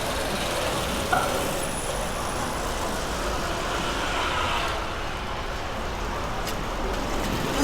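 Steady city street ambience dominated by passing road traffic, cars and larger vehicles, with a brief sharp sound about a second in.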